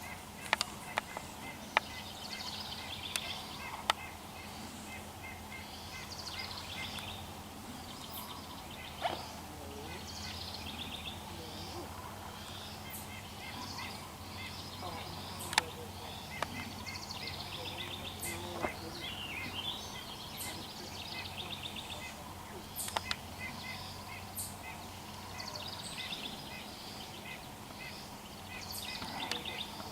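Birds calling in repeated short, high trilled phrases, with scattered sharp clicks and a steady low hum underneath.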